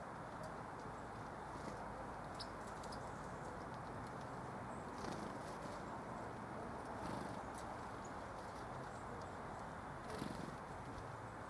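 Small birds (tits) at a feeder: a few scattered sharp taps and knocks, the loudest about ten seconds in, with a couple of faint high chirps about two and a half seconds in, over a steady background hum.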